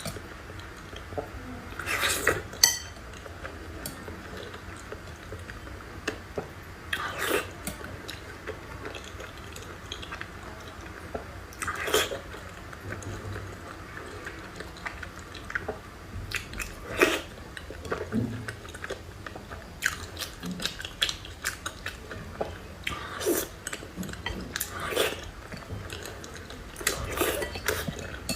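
Close-miked eating: chewing and biting food, with cutlery clinking against dishes. Louder bursts come every few seconds between smaller clicks.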